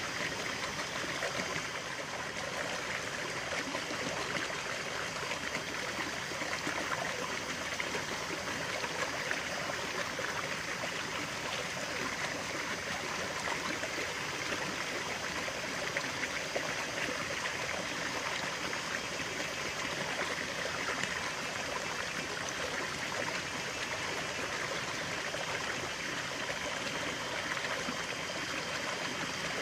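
Natural stream of running water flowing and trickling steadily.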